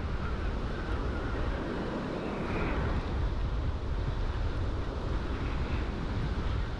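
Wind buffeting the microphone as a steady low rumble, over the wash of surf breaking on the beach.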